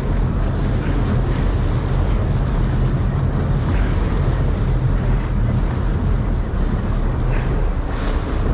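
Boat under way: its engine runs with a steady low hum, while water rushes along the hull and wind buffets the microphone.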